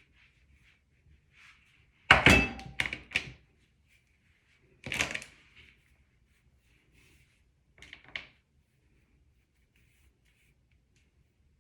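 A few sharp knocks and thuds close to the microphone: a quick cluster of about four, a single one a few seconds later and a smaller pair near the end, with faint rustling between.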